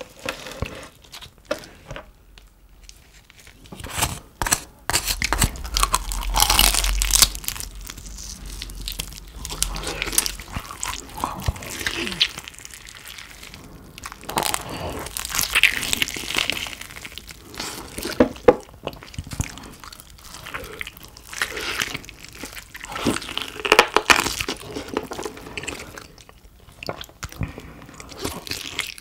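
Close-miked ASMR eating sounds of roast pork: the crispy skin of a Schweinshaxe pork knuckle and BBQ pork ribs being torn, bitten and chewed, in a run of crunches and crackles with louder spells of crunching.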